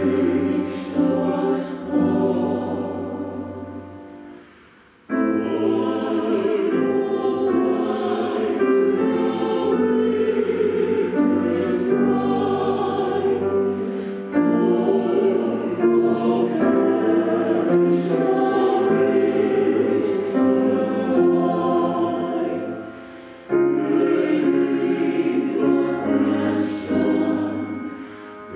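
A small mixed choir of about six voices singing a slow hymn of lament, line by line. The phrases fade out and restart about five seconds in and again about 23 seconds in.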